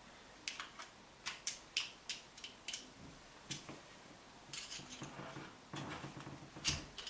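Light metallic clicks and taps, about a dozen spread irregularly, from the small steel parts of an interior door handle's mechanism, including its retaining ring, being handled and pressed into place.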